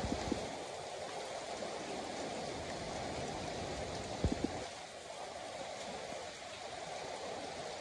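Steady rain falling, an even hiss, with a few brief low thumps about four seconds in.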